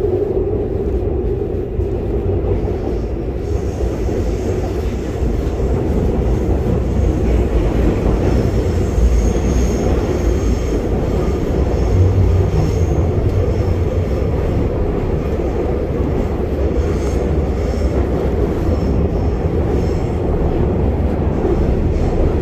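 Interior of a Seoul Metro Line 2 subway car running on its track: a loud, steady rumble of wheels and car body, with a faint high whine that comes and goes.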